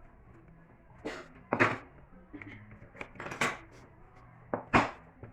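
Objects handled on a workbench: a few sharp knocks and clatters in quick groups, the loudest about a second and a half in and just before the end.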